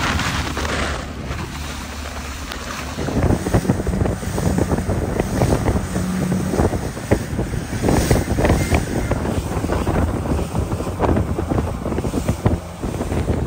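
Wind buffeting the microphone over choppy sea and the rushing wash of a motorboat, with the gusts growing louder from about three seconds in.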